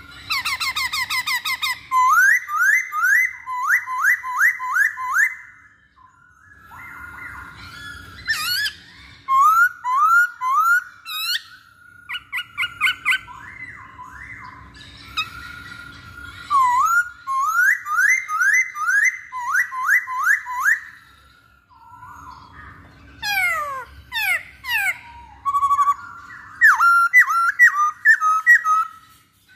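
Black-throated laughingthrush (Hongkong poksay) singing: loud runs of quick, rising whistled notes, each phrase a few seconds long with short pauses between, mixed with higher chattering notes and, about three-quarters of the way through, a run of falling notes.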